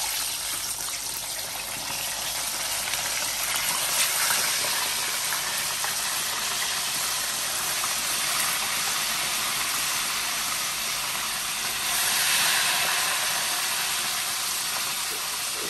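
Chicken pieces frying in very hot oil in a frying pan: a steady, dense sizzle and crackle of bubbling oil, a little louder about twelve seconds in. This is the second, hotter fry to crisp the already cooked chicken.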